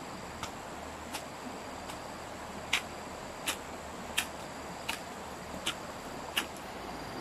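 Short, sharp clicks repeating at a steady pace, about one every three-quarters of a second, over a faint steady insect buzz.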